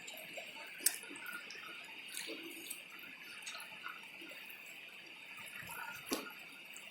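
Stream water running over stones, a steady hiss with small drips and splashes, and two sharp clicks, about a second in and near the end.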